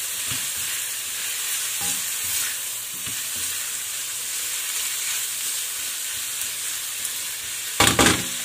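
Squid, chicken and vegetables sizzling steadily in a stainless steel frying pan as they are stirred with a spatula, with a few soft scrapes. Near the end comes a loud, sharp double clack.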